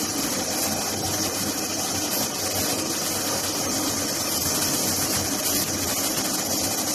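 LIMAC R2109K CNC duct-panel cutting machine running steadily: an even machine noise with a strong hiss over a low hum.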